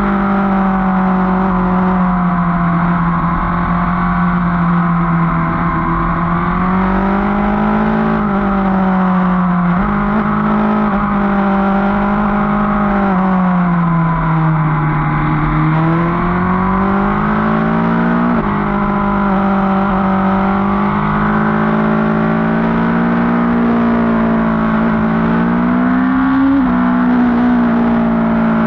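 Motorcycle engine running on the road, heard from on board. Its pitch rises and falls with the throttle and steps abruptly a few times.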